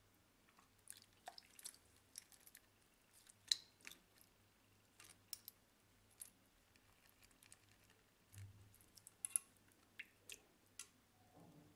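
Faint, scattered small clicks and taps as a smartwatch and its silicone strap are handled and flexed, the strap being worked at where it joins the case.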